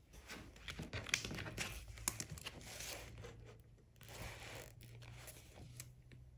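Faint paper handling: an open textbook's pages rustling and scraping as the book is moved, with a few light clicks and knocks.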